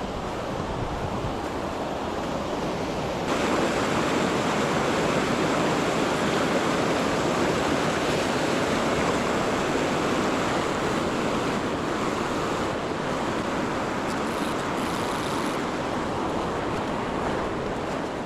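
Mountain stream water rushing over rocks, a steady rush that gets louder about three seconds in.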